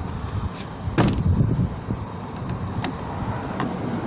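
2006 Kia Spectra door latch and handle being worked: one sharp click-knock about a second in, then a few lighter clicks. The latch is now releasing after a pushed-in part of its linkage was put right.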